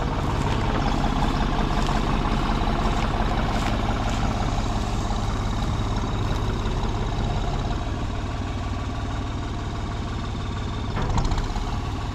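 A vehicle engine running steadily, with a short louder sound near the end.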